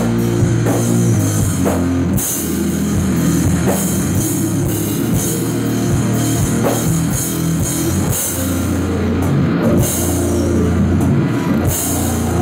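A live rock band playing heavy, loud rock: distorted electric guitars, bass and a drum kit pounding out a steady beat.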